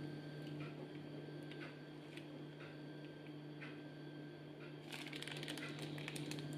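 Plastic piping bag crinkling as a hand squeezes it to pipe mayonnaise, with a few faint ticks and then a dense burst of crackles from about five seconds in, over a steady low hum.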